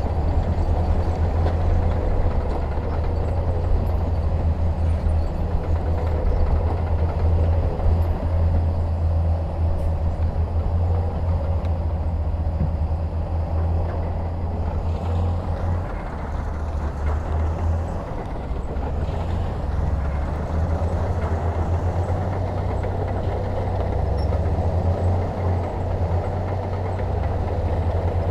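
Heavy diesel earthmoving machinery running steadily, with strong low engine sound, easing slightly about two thirds of the way through.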